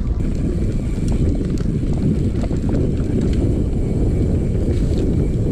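Mountain bike ridden downhill on dirt singletrack: a steady rumble of knobby tyres on dirt mixed with wind buffeting the microphone, with a few small clicks and rattles from the bike.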